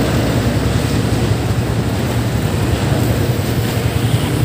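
Wind rushing over the microphone with a steady low rumble from a moving road vehicle.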